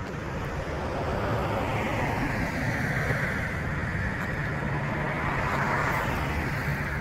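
A car running: a rushing engine and road sound swells over the first couple of seconds and eases near the end, with a steady low engine hum joining about halfway through.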